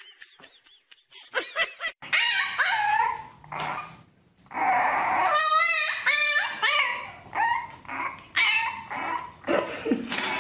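Puppy yelping and whining in a string of high, wavering cries, starting about two seconds in.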